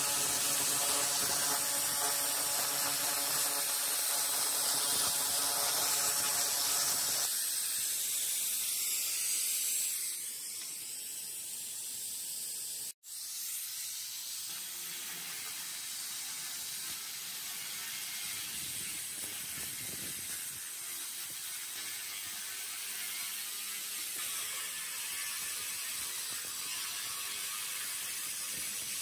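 300 W handheld pulsed laser cleaner ablating rust from metal: a steady rapid crackling buzz over a hiss. The sound changes character about seven seconds in and drops out for an instant near the middle.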